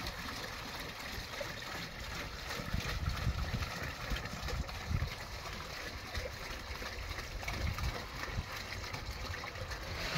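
Water pouring from plastic jerrycans into a metal basin, a steady splashing trickle, with an irregular low rumble under it.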